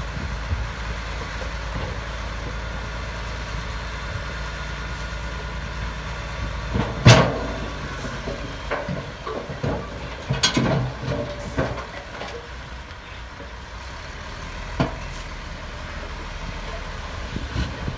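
Heavy diesel construction machinery running steadily, with a loud bang about seven seconds in followed by a run of clattering knocks and one more knock later.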